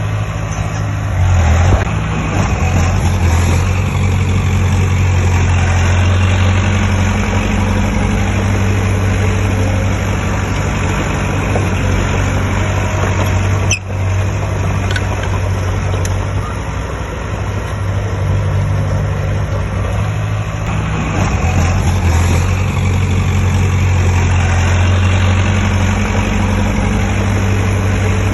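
Heavy diesel engine of earthmoving machinery running steadily. It grows louder about a second and a half in and again around twenty seconds in, and cuts out for an instant near the middle.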